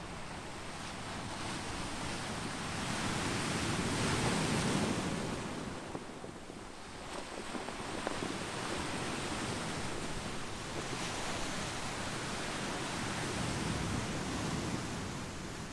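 Pacific surf washing over a beach of smooth volcanic boulders and pebbles. One wave swells to a peak about four seconds in and fades, then a second, longer wash follows.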